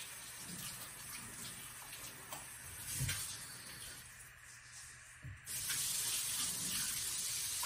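Water running from a newly installed Kohler kitchen faucet into a stainless steel sink. About five and a half seconds in, the flow gets suddenly louder and hissier.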